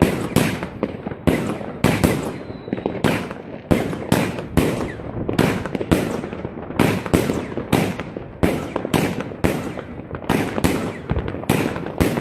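New Year's Eve fireworks and firecrackers going off in a dense, continuous barrage: sharp bangs about two a second, each echoing briefly, over a background of crackling.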